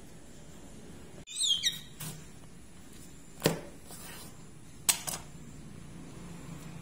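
Kitchen knife cutting a pumpkin on a wooden cutting board: a sharp knock about three and a half seconds in as the blade goes through and hits the board, then a quick double clack a second and a half later as the knife is set down on the board. Before that, about a second and a half in, a few quick high chirps falling in pitch.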